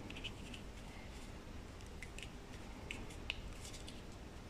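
Small plastic clicks and ticks as the halves of a Toyota remote key's case are handled and pressed together, the sharpest click a little past three seconds in.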